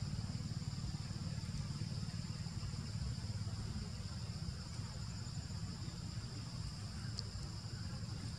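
Steady high-pitched drone of insects, with a steady low rumble beneath it and one brief high chirp about seven seconds in.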